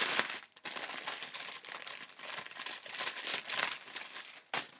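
Plastic wrapping crinkling and rustling as it is handled, with a sharp crackle at the start and another near the end.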